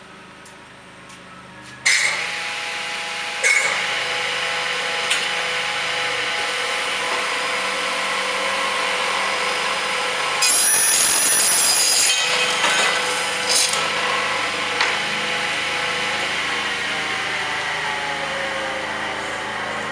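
Elumatec DG 79 double miter saw for non-ferrous metal: its blade motors start suddenly about two seconds in, a second one joining a moment later, and run with a steady whine. Around the middle a blade cuts through the metal stock with a louder, harsher shriek for about a second and a half, then the saw runs on.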